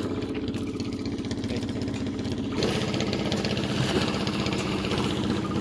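A small engine idling steadily. From about two and a half seconds in, water splashes as a man thrashes through the shallows.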